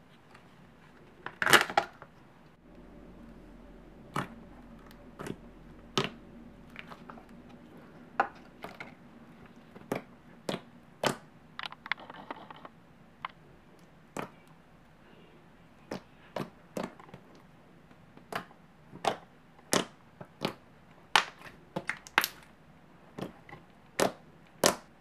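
Thick, glossy slime being poked and pressed with fingers, making a run of sharp clicking pops at irregular intervals, about one or two a second.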